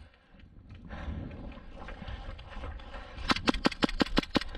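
An airsoft gun firing a rapid string of about nine sharp shots, roughly eight a second, near the end, after a stretch of rustling movement noise.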